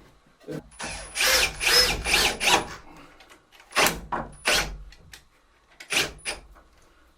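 Power drill driving screws into wooden boards in a series of short bursts: a quick run of pulses early on, then a few single short bursts.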